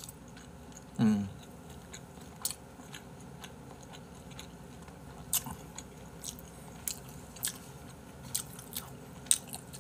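A person chewing a piece of flatfish nigiri close to the microphone, with scattered sharp, wet mouth clicks. A short hum of the voice with a falling pitch comes about a second in.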